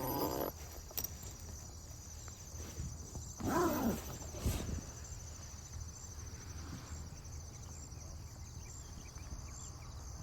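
Crickets chirping steadily at night, a fast high pulsing trill. About three and a half seconds in there is a short rising-and-falling vocal sound, and a single click follows about a second later.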